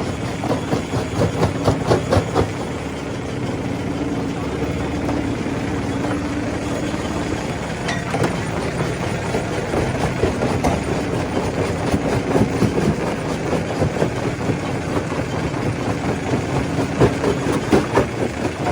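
Stone crusher running steadily, with rocks knocking and cracking as they are broken; the knocks come thickest about two seconds in and again near the end.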